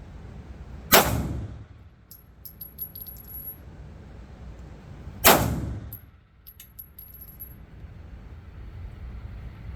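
Two 9mm pistol shots about four seconds apart, each a sharp crack with a short echoing tail, followed by a few light clicks.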